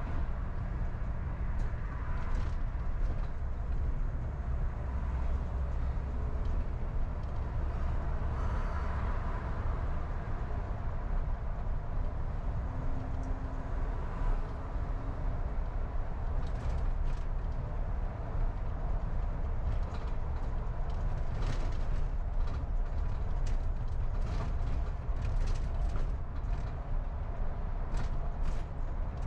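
Steady low rumble of a car driving along a city street: engine and tyre-on-road noise. In the second half, scattered short clicks and light rattles.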